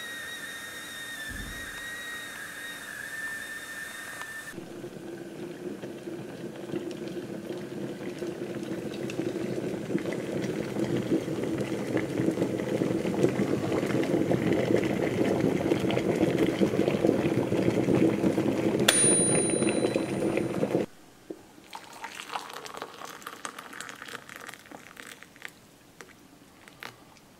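Stainless electric kettle heating water, its rumbling hiss growing steadily louder as it nears the boil, then cutting off abruptly about 21 seconds in. Water is then poured from the kettle into a glass. Before the kettle, during the first few seconds, there is a steady high whistle-like tone.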